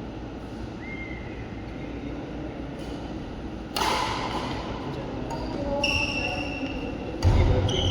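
Badminton rally on an indoor court: a sharp crack of a racket striking the shuttlecock about four seconds in, echoing in the hall, followed by short high squeaks of court shoes and a heavy thud of a player's foot landing near the end.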